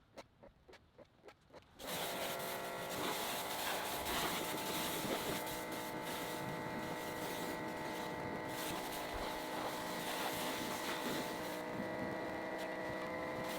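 Faint rhythmic ticking, then about two seconds in a motor-driven machine switches on and runs steadily: a hum of several steady tones under a strong hiss.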